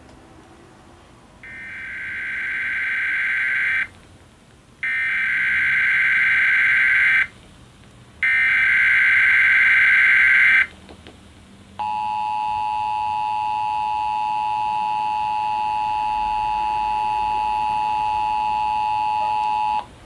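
Emergency Alert System test played through a television's speaker: three bursts of SAME digital header data, each about two and a half seconds long with about a second's gap between, then the steady two-tone EAS attention signal held for about eight seconds before it cuts off suddenly.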